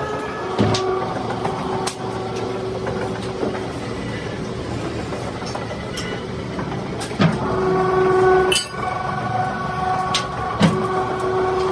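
Factory machinery running: a steady pitched hum that fades out and comes back stronger later on, over a noisy background, with several sharp knocks.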